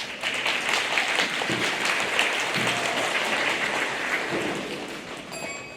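Audience applauding in a large hall, starting at once and fading away near the end.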